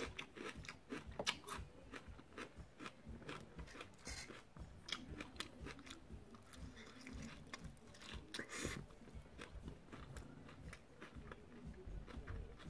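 Close-up chewing of a fried chicken wing: a bite into the wing, then chewing with many small, irregular crunches and wet mouth clicks.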